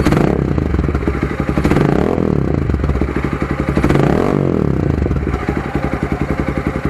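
Motorcycle engine breathing through an open Akrapovic dual-outlet 51 mm slip-on muffler with no silencer insert, idling with an even pulsing beat. The throttle is blipped three times, at the start, about two seconds in and about four seconds in, and each time the revs climb and fall back to idle.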